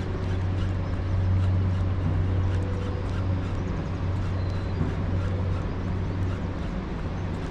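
Small boat motor running at a steady low hum while under way, with water splashing and hissing around the hull.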